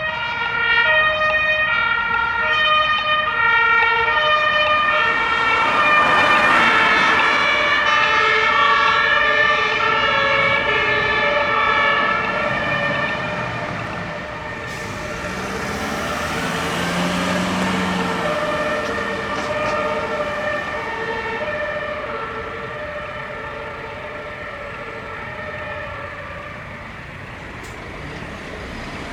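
German fire engines passing with two-tone Martinshorn sirens, high and low notes alternating. The sirens are loudest a few seconds in, then fade away as the vehicles move off, with engine noise from a passing vehicle around the middle.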